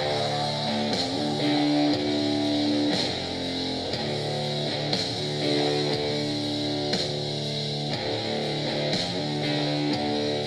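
Song with strummed electric guitar and a steady beat, played back through a JBL Clip 4 portable Bluetooth speaker for a sound test.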